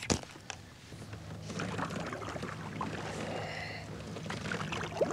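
Kayak paddle strokes splashing and dripping water. A sharp click sounds right at the start, and a short rising squeak comes near the end.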